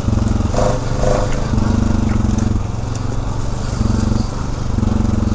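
ATV engine running under way on a dirt trail, heard close from the rider's seat, its note shifting up and down as the throttle is worked.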